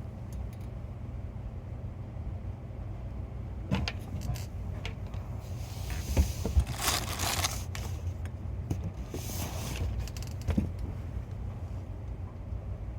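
Steady low rumble of a vehicle heard from inside, with scattered clicks and two brief swells of hiss about six and nine seconds in.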